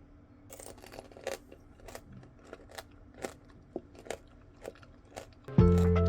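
Someone biting and chewing shine muscat tanghulu: the hard sugar-candy shell cracking in a string of sharp crunches. Background music comes in loudly near the end.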